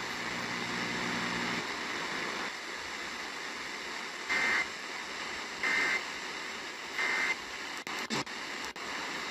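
Emergency Alert System end-of-message data tones: three short warbling bursts, each about a third of a second long and a little over a second apart, over steady radio static. A low hum sounds for the first second and a half, and a few clicks come near the end.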